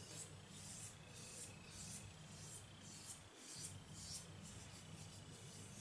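Fingertips rubbing a gritty baking-soda and aspirin paste over facial skin: faint rasping strokes about twice a second.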